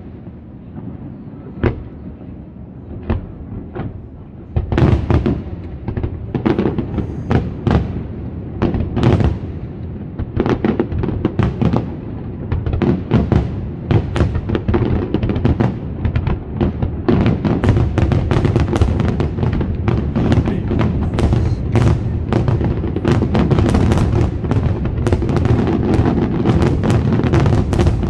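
Fireworks display: a few separate bangs, then from about five seconds in a dense, continuous barrage of shell bursts and crackle that grows thicker toward the end.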